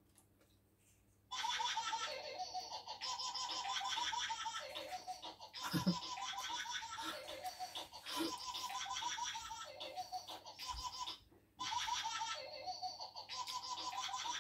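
High-pitched, rapid laughter played back through a phone's speaker. It starts suddenly about a second in, breaks off for a moment near eleven seconds, and starts again.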